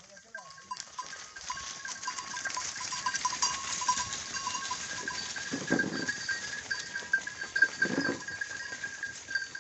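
Goats bleating: two calls about two seconds apart in the second half, over steady background noise from the herd at feed.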